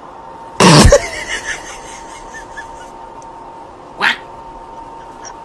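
Screams from a shaggy puppet dog: one loud scream about half a second in and a shorter one about four seconds in.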